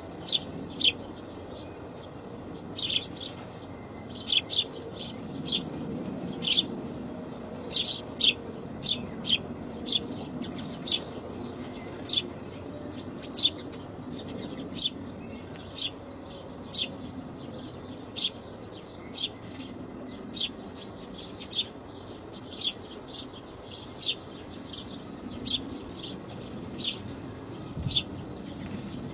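Birds chirping: short, sharp, high chirps, irregularly spaced at about one or two a second, over a low steady background noise.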